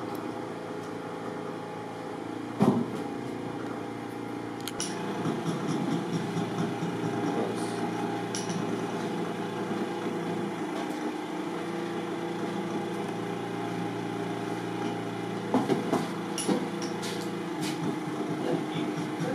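A steady mechanical hum from a running motor in the workshop, with a sharp knock a few seconds in and a short cluster of clicks near the end from handwork on the ball in its metal holder.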